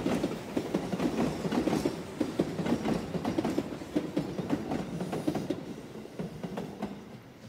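Tobu 8000 series electric train rolling through the station trackwork, its wheels clattering over rail joints and points in a dense run of clicks. The clatter fades out near the end.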